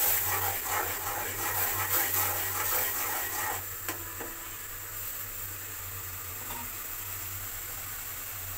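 Spatula stirring and scraping onion-and-spice masala frying in a metal kadai for the first three and a half seconds, then a single sharp tap about four seconds in. After that the masala sizzles steadily in the oil as it is fried down.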